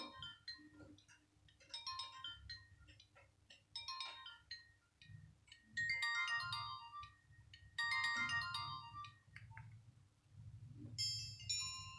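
Nokia 1202 mobile phone playing a ringtone through its small speaker: a short electronic melody phrase repeating about every two seconds. After a brief pause near the end, a different tune starts.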